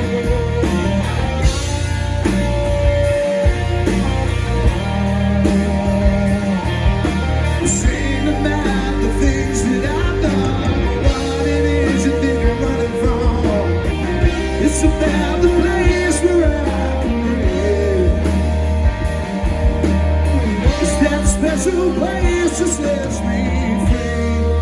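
Live rock band music, with guitar, bass and regular drum hits in a long stretch without recognised lyrics.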